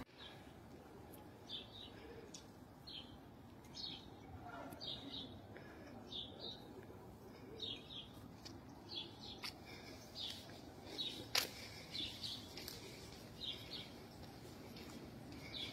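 Small birds chirping, short high chirps repeating every second or so, faint over a low background hum. One sharp click about eleven seconds in.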